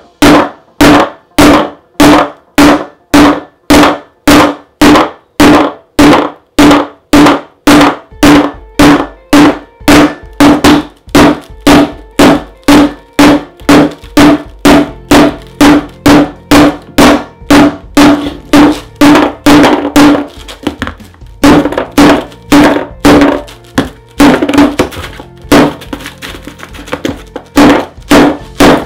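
Repeated hammer blows on an LG G3 smartphone lying on a wooden tabletop, steady at about two a second, each a sharp hit with a short ring. About two-thirds of the way through, the blows turn irregular with brief pauses.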